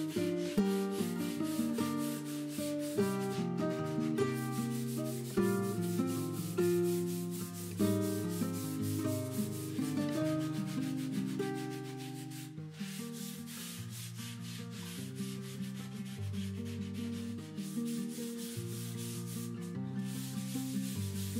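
Hand sanding of a cabinet top with sandpaper, quick back-and-forth strokes, heard together with background music of melodic notes.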